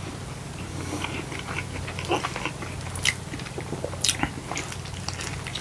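A person chewing and biting food close to the microphone: scattered wet mouth clicks and crunches, the sharpest about three and four seconds in.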